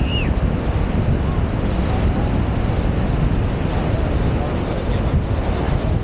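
Ocean surf washing up the shore, mixed with wind buffeting the microphone; a steady, dense rush strongest in the low end.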